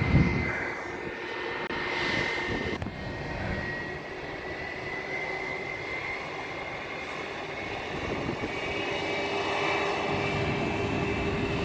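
Jet engines of a Spirit Airlines Airbus A320-family airliner taxiing on low thrust: a steady whine over a broad rush, edging up slightly in pitch and growing a little louder over the last few seconds. A brief low rumble at the very start.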